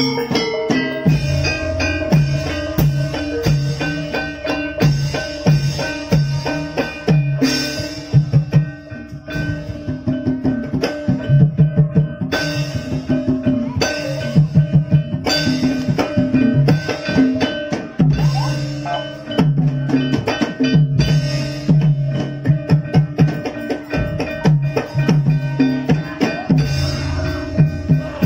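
Javanese gamelan music for an ebeg trance dance: hand drums play a busy, driving rhythm over steady, held pitched tones from the ensemble.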